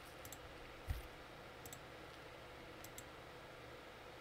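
Faint computer mouse button clicks, several in quick press-and-release pairs, over a low steady room hiss, with a soft low thump about a second in.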